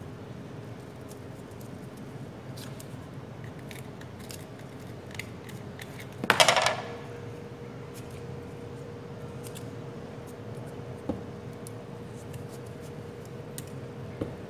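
Light clicks and rustles of enamelled copper coil wire being handled and pressed into the slots of a small single-phase gate-motor stator during rewinding. About six seconds in comes one louder crisp crackle, and there are a couple of single knocks later, over a steady low hum.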